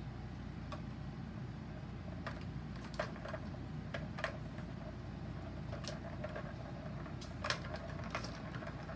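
Kittens pawing at a three-tier plastic ball-track toy, the balls knocking around in the plastic tracks: about nine scattered sharp clicks and clacks, the loudest about seven and a half seconds in, over a steady low hum.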